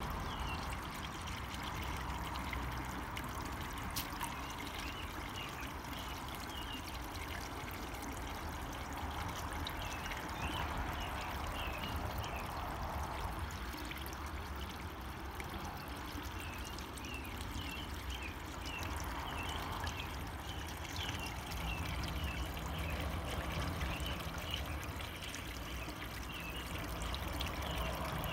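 Steady trickle and splash of water running into a koi pond, with faint high chirping at times in the background.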